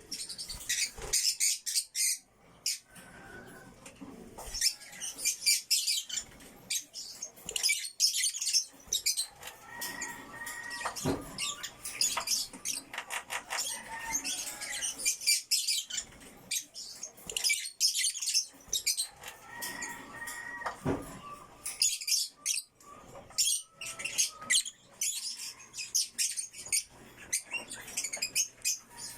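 African lovebirds, including a violet lovebird, chirping: shrill, rapid chattering calls in repeated bursts, with short pauses between.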